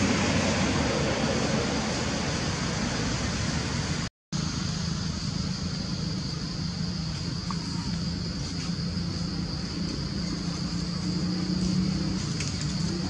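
Steady background hum and hiss, with a low droning note under it, broken by a brief total dropout about four seconds in.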